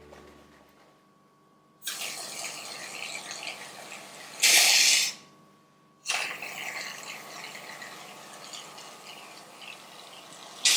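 Aerosol can of shaving foam hissing as foam is sprayed out. There are two long sprays, the first from about two seconds in with a louder surge near its end, the second from about six seconds in to near the end.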